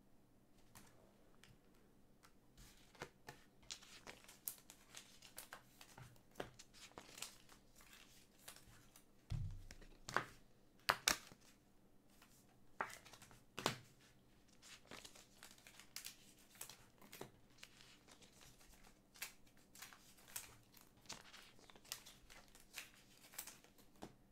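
Faint crinkling and rustling of trading cards and plastic card sleeves and top loaders being handled, with scattered sharp clicks and a dull thump about nine seconds in.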